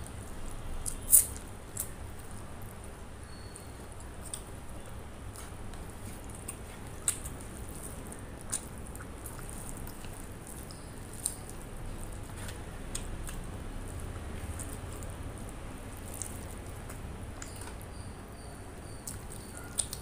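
Close-up mouth sounds of eating chicken leg curry and rice by hand: chewing with scattered sharp wet clicks and lip smacks, the loudest about a second in, over a steady low background hum.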